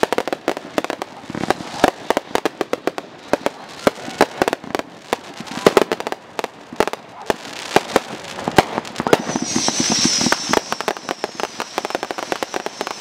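Barrage of aerial firework shells bursting, with many bangs in quick, irregular succession. About nine seconds in, a steady high-pitched hiss comes in over the bangs and carries on.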